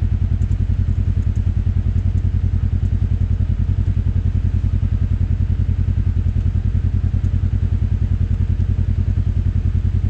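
Side-by-side UTV engine idling steadily with an even, rapid low pulse while the vehicle stands still.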